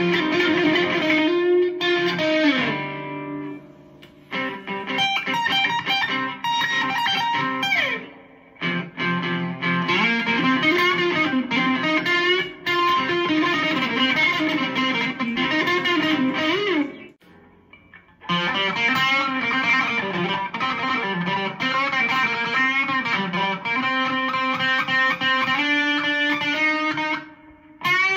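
Squier Stratocaster-style electric guitar playing a C blues lead, single-note phrases with bent, wavering notes, broken by short pauses between phrases, the longest about seventeen seconds in.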